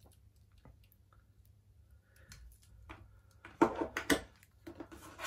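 Stainless steel watches on leather straps being handled and set down on a tabletop: faint taps and rustles, then a few sharp knocks and clicks of the cases and clasps against the table about three and a half to four seconds in, with a couple more near the end.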